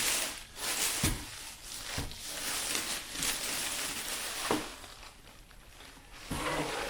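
Packaging being handled while unboxing a display case: rustling of wrapping and foam, with a few light knocks, about one, two and four and a half seconds in.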